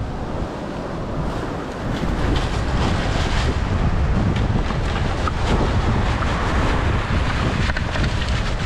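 Wind buffeting the microphone, a heavy rumble that grows louder about two seconds in, with beach surf in the background. A few short clicks and knocks sound through it.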